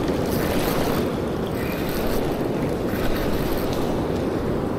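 Steady wind noise on the microphone over surf washing up a sandy beach.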